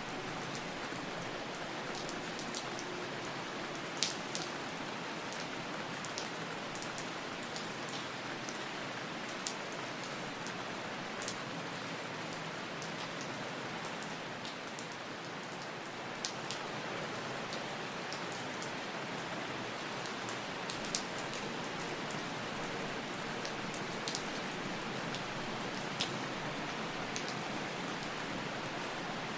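Steady rain falling on a surface, an even hiss with distinct drops ticking sharply here and there.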